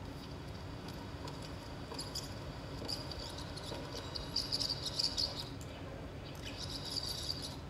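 High, insect-like chirring in spells, strongest around the middle and again near the end, over a low steady hum.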